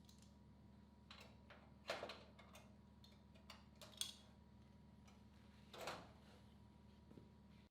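Faint workshop handling noises: a few scattered clicks and knocks over a low steady hum, which cuts off suddenly at the end.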